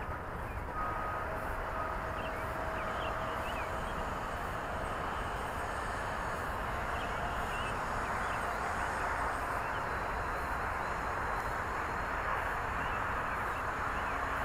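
JJRC X1 brushless quadcopter flying some way off, its motors giving a steady buzz with a faint whine, over a steady rush of noise.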